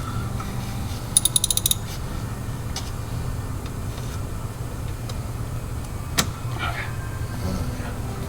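Hand ratchet clicking rapidly, a quick run of about eight clicks in just over half a second about a second in, then one lone sharp click later on, over a steady low rumble.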